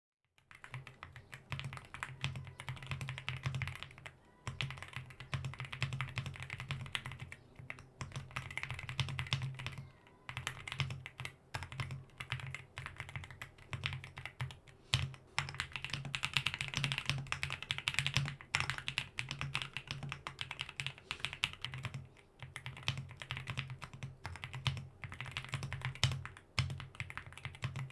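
Fast typing on a Monsgeek M1 V5 gasket-mount mechanical keyboard with Akko linear switches and double-shot PBT Cherry-profile keycaps: a dense run of keystroke clacks with a deep low thock under them, broken by a few brief pauses.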